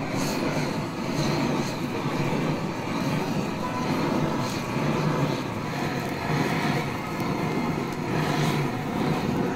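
Handheld cooking torch flame roaring steadily as it melts cheese on grilled lobster, with a few faint crackles.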